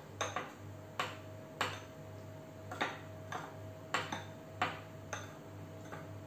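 Metal spoon clicking against a small glass bowl while stirring foaming baking powder and milk: a string of light clicks, roughly two a second, over a faint steady hum.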